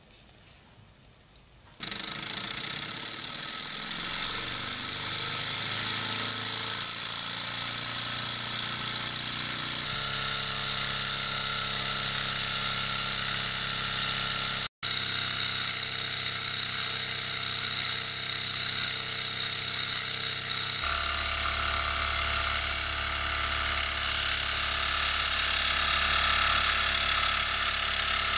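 Small alpha Stirling engine model running, a steady fast mechanical rattle with a low hum from its pistons and flywheel. It starts abruptly about two seconds in, and the hum steps to a different pitch twice.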